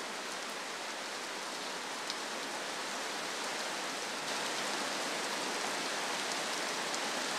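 Tropical rain falling steadily on a river's surface, an even hiss of countless drops that grows a little louder about four seconds in.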